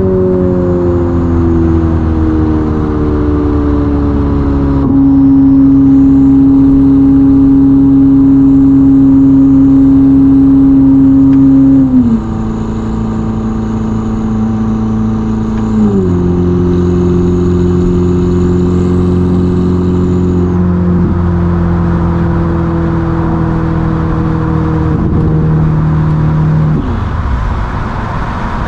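Ferrari SF90's twin-turbo V8 with a Novitec sport exhaust, heard from inside the cabin while the car slows from high speed. Its pitch sags over the first few seconds, then the engine gets louder at a steady pitch, steps down in pitch twice, and goes much quieter near the end.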